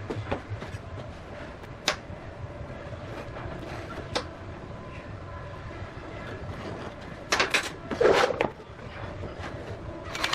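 Scattered sharp clicks and knocks of hard objects being handled, over a steady low hum, with a louder burst of clatter about seven to eight seconds in.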